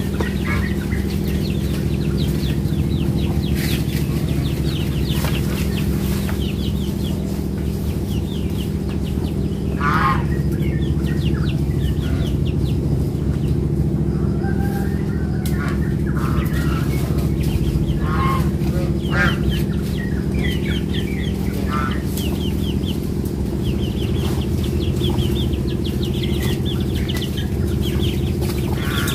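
Chickens clucking, with short chirping bird calls, over a steady low hum.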